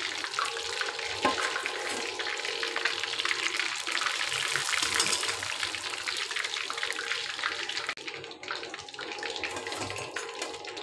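Battered fish frying in hot oil in a kadai: a steady crackling sizzle that has settled to a gentle level, the sign the fish is cooked through. About eight seconds in, the sizzle cuts off suddenly, leaving quieter sparse clicks.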